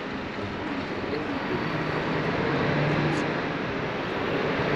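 Street traffic noise with a passing vehicle's engine, growing louder around the middle.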